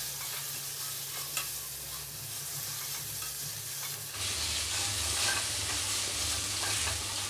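Whole aamra (hog plums) frying in hot oil in a kadai, sizzling steadily as they are stirred around the pan; the sizzle grows louder about four seconds in, with a single click about a second and a half in.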